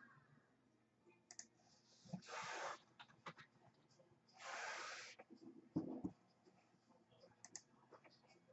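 Faint, scattered clicks of a computer mouse, with two short hissy swishes about two and four and a half seconds in and a soft knock about six seconds in.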